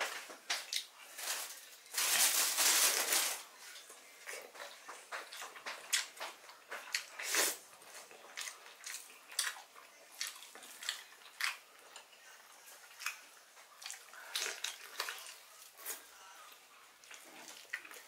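Close-up eating sounds: wet chewing and lip-smacking clicks from a person eating grilled chicken by hand, with one louder, noisier sound lasting about a second, about two seconds in.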